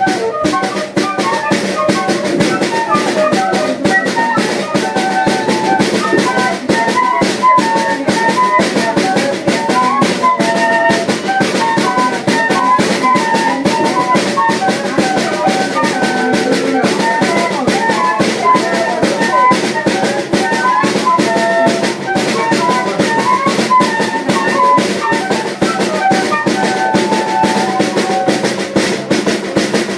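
Banda de pífano playing: a lively melody on fifes over a steady beat on a zabumba bass drum and a snare drum.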